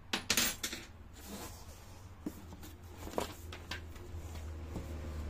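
Cardboard packaging and paper being handled while unpacking: a cluster of loud rustles and scrapes in the first second, then scattered small crinkles and clicks, over a low steady hum.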